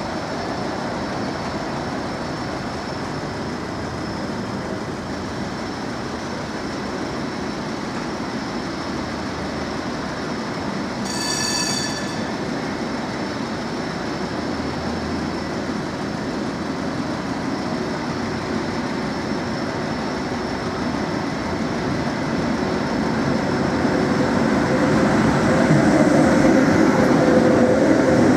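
Tram running on its rails, a steady rumble of wheels on track. A short high ringing tone comes about eleven seconds in, and the sound grows louder over the last few seconds.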